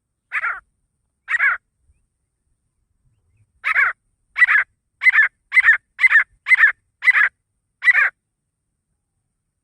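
Male grey francolin (desi teetar) calling: loud, harsh repeated notes, two spaced a second apart, then after a pause a quicker run of eight.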